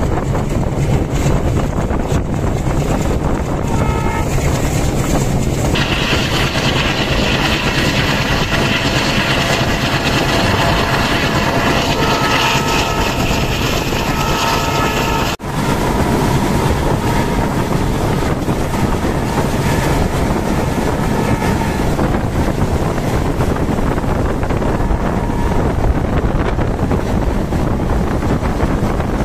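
Passenger train running at speed, heard from on board: a steady rumble of wheels on rail mixed with wind rush on the microphone. From about four seconds in, a long high tone sounds over it and stops abruptly about halfway through. Fainter tones return briefly afterwards while the running noise goes on.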